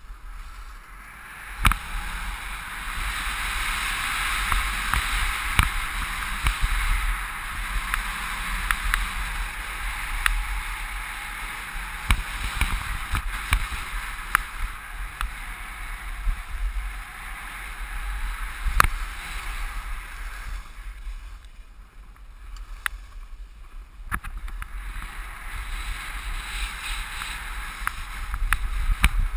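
Skis sliding and carving on packed, groomed snow: a steady hiss with scattered sharp clicks, over a low wind rumble on the microphone. The hiss eases off for a few seconds about three-quarters of the way through, then returns.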